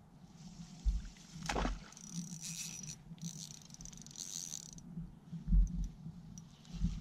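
Spinning reel being cranked: a hissing whir with a faint high steady tone, in two stretches, the second ending a little before five seconds in. A brief swish comes about a second and a half in, and dull low knocks come now and then.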